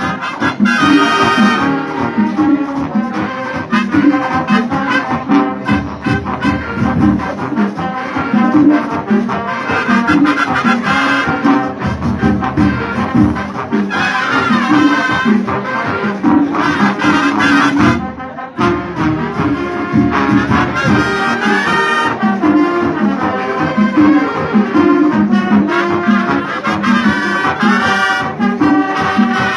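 Marching band playing Latin-style music: trumpets and trombones leading over a steady beat, with a brief break about 18 seconds in.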